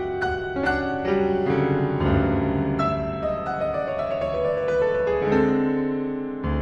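Solo grand piano playing a classical piece. Struck notes ring on, a melody steps downward in the middle, and a low chord comes in near the end.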